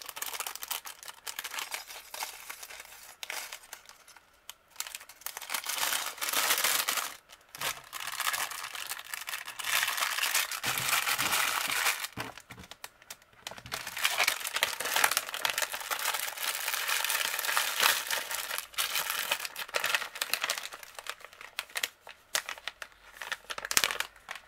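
Thin clear plastic bags crinkling and rustling as they are handled, in several spells of a few seconds each with small clicks in between.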